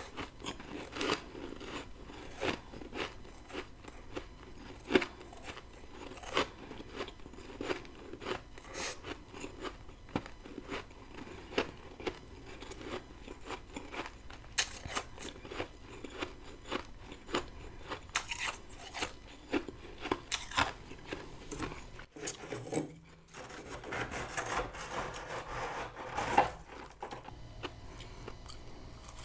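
Close-miked biting and chewing of freezer frost, crisp crunches coming a couple of times a second. A short break comes about 22 seconds in, then a stretch of denser crunching.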